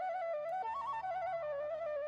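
Background instrumental music: a single melody line stepping up and down in pitch, repeating a short phrase over a soft accompaniment.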